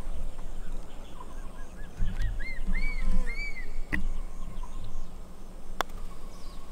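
A bird calling a short run of arched notes that rise and fall, each higher and louder than the last. About four seconds in comes one sharp click, typical of a putter striking a golf ball. Low rumble underneath.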